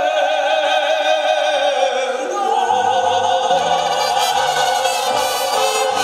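A man and a woman singing a long held note together in harmony, with strong vibrato, over a mariachi band; about two seconds in the voices step up to a higher held note.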